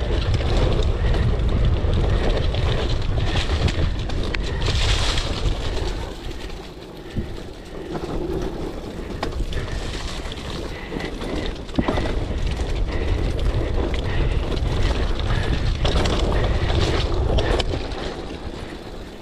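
Wind buffeting the microphone of a mountain biker's camera during a fast downhill ride, with the bike rattling over rough ground and a few sharp knocks. The rumble eases briefly about six seconds in, then builds again.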